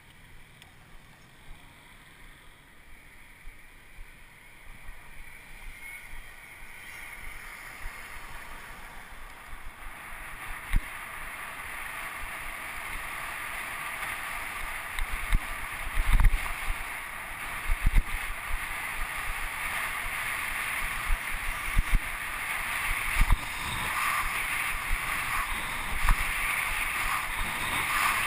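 Wind rushing over the microphone of a camera on a moving bicycle, growing steadily louder as the bike gathers speed. From about ten seconds in, scattered sharp knocks come from the road jolting the camera mount.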